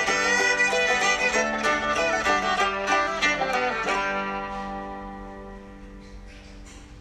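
Background music, busy with notes at first and then fading out from about four seconds in.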